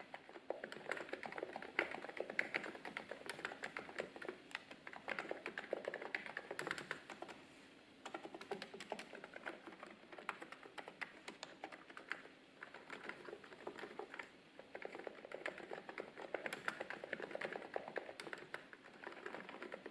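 Typing on a Hansung GK888B electrostatic capacitive keyboard with XDA-profile PBT keycaps: a fast, continuous patter of key strokes, pausing briefly twice.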